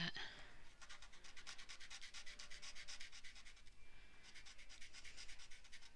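Coloured chalk scratching over black paper in faint, rapid back-and-forth strokes as an area is coloured in, with a short pause about four seconds in.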